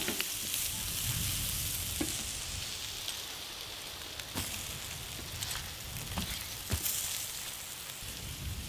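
Meat sizzling on hot stones over a fire: a steady hiss, with a few short clicks now and then.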